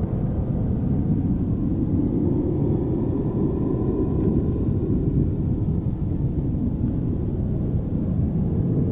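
Steady low rumbling outdoor background noise.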